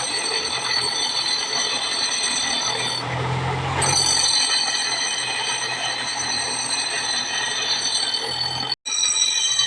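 A steady whine from a motor-driven workshop machine, made of several held high tones over a low hum. It changes briefly about three seconds in and cuts out for a moment near the end.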